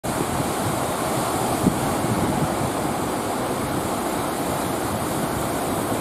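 Heavy surf breaking in a steady rush, with wind on the microphone and a brief thump a little under two seconds in.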